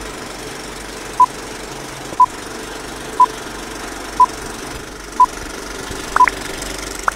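Film countdown leader: a short beep once a second, five times, over the steady whirring clatter of a film projector, followed near the end by two brief rising chirps.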